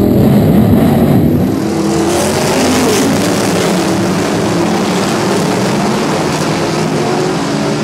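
Race car engines at full racing volume. For the first second and a half it is one modified race car's engine heard on board; then comes a field of cars running together around the track, their engine notes rising and falling as they pass.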